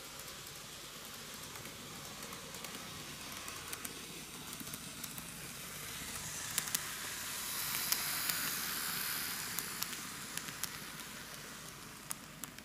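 Micro Ace N-gauge Meitetsu KiHa 8000 series model diesel railcar set running on model track. Its hiss grows louder as it approaches, peaks about eight seconds in and then fades, with scattered sharp clicks.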